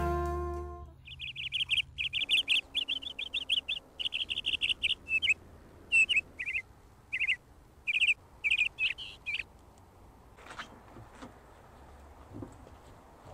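A small bird chirping: quick runs of trilling calls, then spaced single chirps, stopping about nine seconds in. Music fades out in the first second, and a couple of faint knocks come near the end.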